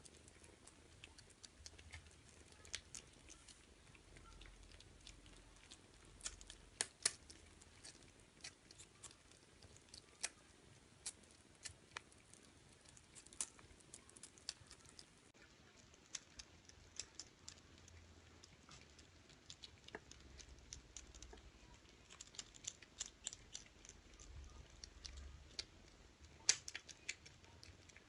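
Kittens eating from a plastic bowl: faint, irregular small clicks of chewing, with a few louder clicks now and then.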